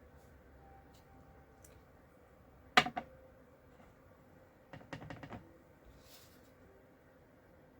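Hard clicks and taps of rubber-stamping supplies being handled on a craft desk: one sharp click about three seconds in, then a quick run of about five lighter taps around five seconds in.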